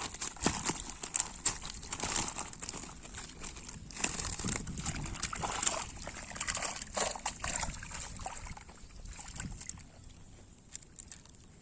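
Water sloshing and splashing in irregular bursts, dying away over the last few seconds.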